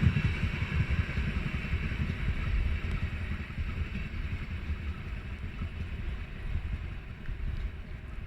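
A train rolling past on the line, a heavy rumble with rail and wheel noise that slowly fades as it moves away.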